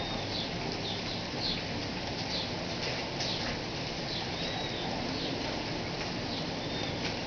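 Steady rain falling, an even constant hiss, with short high bird chirps every second or so over it.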